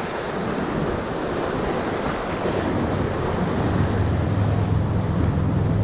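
Rushing whitewater of a Class III river rapid, heard from a kayak, with wind on the microphone. A low steady drone comes in a little past halfway.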